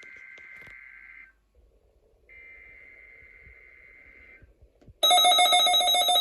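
NOAA Weather Radio Required Weekly Test: two faint, rasping bursts of the SAME digital header data, with radio hiss between them. About five seconds in, a loud, buzzing alert tone starts abruptly.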